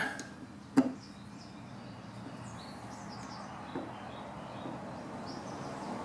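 One sharp click about a second in as a screwdriver is set into the golf cart carburetor's brass main jet, then a faint steady hiss with scattered bird chirps in the background.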